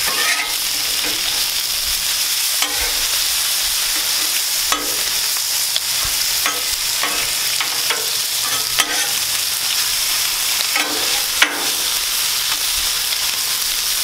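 Bacon and hash browns sizzling steadily on a hot steel flat-top griddle, with scattered clicks and scrapes of metal tongs and a spatula against the cooktop every second or two.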